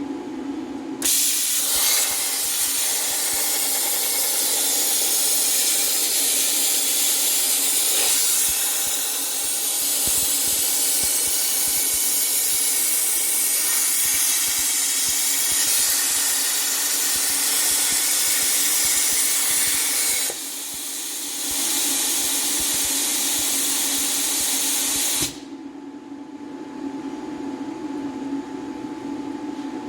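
CNC plasma cutter torch cutting a part out of thin sheet metal (about 18 gauge): a loud, steady hiss of the arc and its air that starts about a second in, dips briefly around twenty seconds in, and cuts off suddenly near the end, leaving a steady machine hum.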